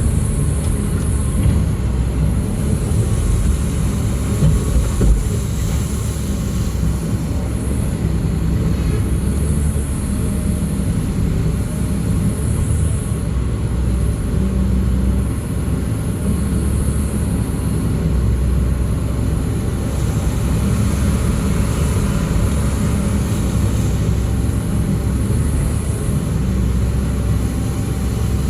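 Heavy diesel engine running steadily under load, a dense low drone with a faint high whine above it that holds throughout.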